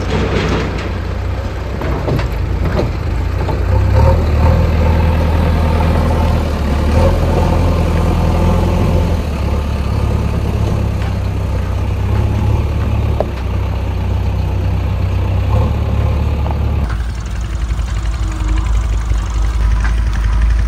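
Diesel engine of a JCB 3DX backhoe loader running as it drives, with tractor engines running behind it. About seventeen seconds in the sound changes abruptly to a steadier, lower engine drone.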